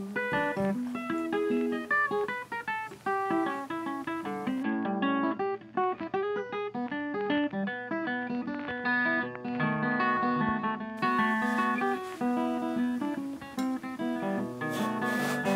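Plucked acoustic guitar music. Near the end, a knife starts cutting on a wooden cutting board, heard as quick scraping strokes over the music.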